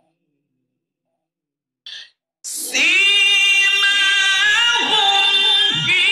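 A man's voice chanting Quranic recitation: after a couple of seconds of near silence and a brief hiss, it sets in about two and a half seconds in on a loud, high, long-held melodic note that bends slightly in pitch.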